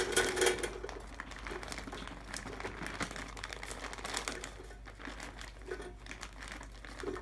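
Plastic bag of pre-cut fries crinkling as the fries are poured into a Philips air fryer basket, with many small clicks as they land. Loudest in the first half-second.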